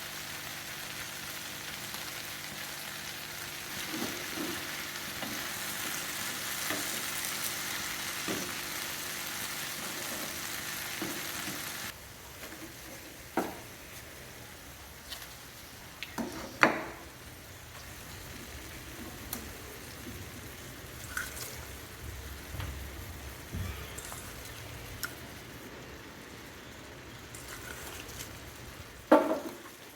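Okra sizzling in oil on a tawa, with knocks of a spatula stirring it. About twelve seconds in the sizzle drops off sharply, leaving a quieter background broken by a few sharp utensil clanks.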